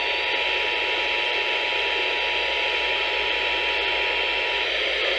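Emergency Alert System two-tone attention signal during a required monthly test, received through heavy radio static. The steady dual tone stops about four and a half seconds in, leaving only the static hiss.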